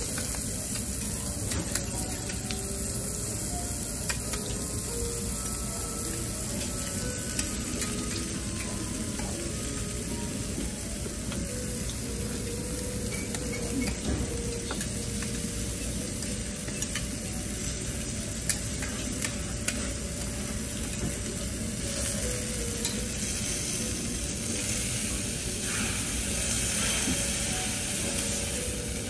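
Food sizzling steadily on a teppanyaki steel griddle, with metal spatulas scraping and clicking against the plate now and then.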